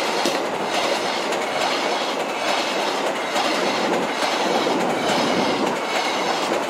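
A long passenger train's coaches rushing past at speed close by, a steady rumble and rush with a regular clickety-clack of the wheels over the rail joints.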